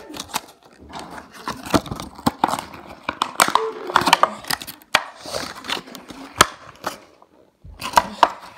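Clear plastic blister packaging of a toy crackling, crinkling and clicking as it is handled, with a short silent gap near the end.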